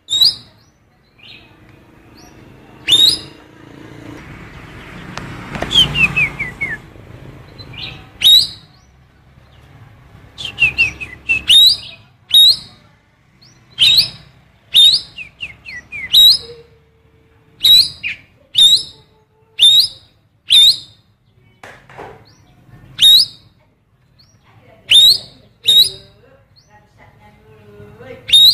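Cucak keling biru singing a song filled with female oriental magpie-robin calls. It repeats short, sharp, upward-sweeping calls every second or two, with a few quick runs of falling notes in between.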